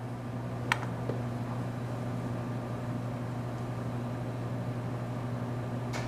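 Steady low electrical hum of running machinery in the background, with one small click about three-quarters of a second in.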